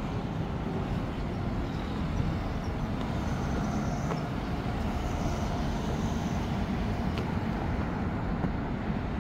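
Street traffic: cars and a small kei truck driving past, a steady noise of engines and tyres with a faint high whine for a few seconds in the middle.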